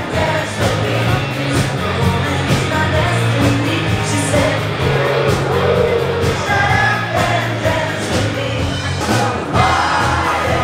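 Amplified band music with a woman singing a melody into a microphone over a steady beat and bass line.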